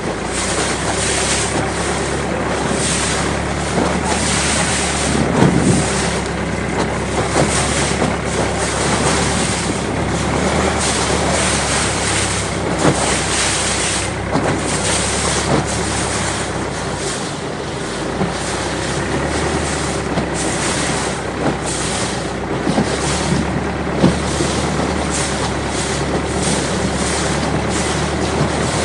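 Thai long-tail boat under way at speed: a steady engine drone under the rush of water along the hull, with frequent slaps of water and wind buffeting the microphone.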